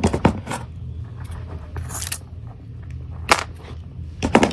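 Wire cutters snipping through a thin black insulated wire: a few sharp clicks and snaps, the loudest about three seconds in, with more clicks from handling the cable near the end.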